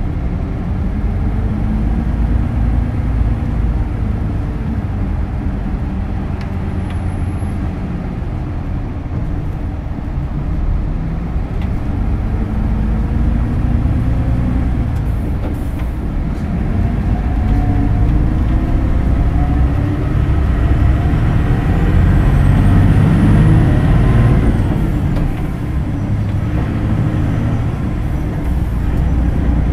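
Hino Blue Ribbon City Hybrid city bus (BJG-HU8JLFP) driving: a steady engine and drive note under road noise. The engine note rises in pitch as the bus accelerates in the second half, is loudest about two-thirds through, then eases off.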